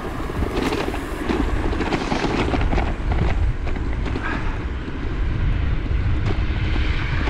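Wind rumbling on the microphone with irregular rattles and knocks from a Himiway Cruiser fat-tyre e-bike riding over a bumpy path.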